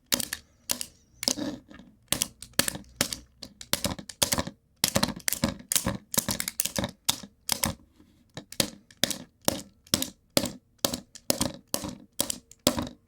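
A plastic remote control being struck over and over: an irregular run of sharp knocks and clicks, about two to three a second.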